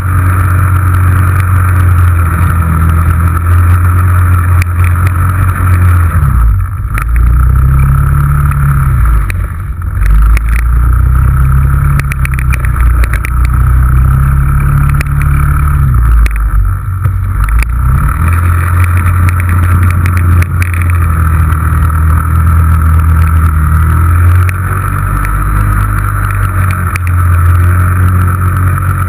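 Yamaha Rhino 660 side-by-side's single-cylinder engine running hard, picked up by the hood-mounted camera. The revs rise and fall several times in the middle stretch as the machine slides around in circles on snow, then settle to a steadier pull.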